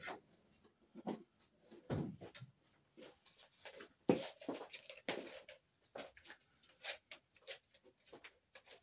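Scattered light knocks and clatter, a few short taps every second or so, from things being handled and set down on a workbench.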